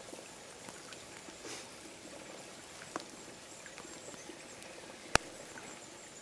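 Steady rain in a wet conifer wood, with scattered drops ticking and dripping. One sharp click about five seconds in.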